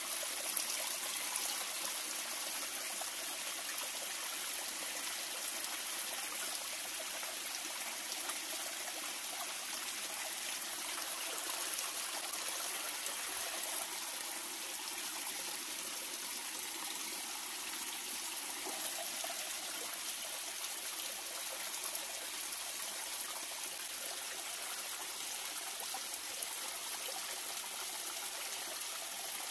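Shallow river water trickling and running steadily over rocks.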